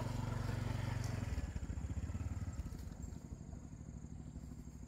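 Small motorbike engine running, loud at first, then dropping in pitch and level about a second in and carrying on more quietly.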